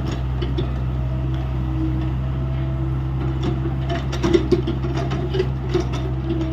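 Hyundai 85A excavator's diesel engine running steadily with a steady whine over it, and a run of sharp knocks and clatters from about halfway in, loudest a little past the middle.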